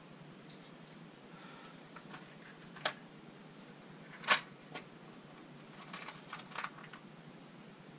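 Small clicks and taps of hands working electrical wiring and hardware at a wall, over a faint steady hiss. The sharpest click comes about four seconds in, with a run of lighter clicks about two seconds later.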